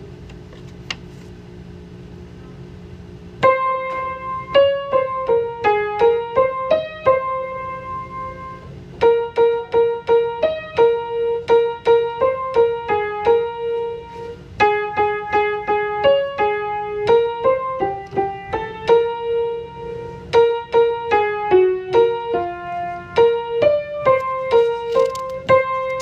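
Piano music: a melody of single struck notes, starting about three and a half seconds in and played in short phrases with brief pauses between them.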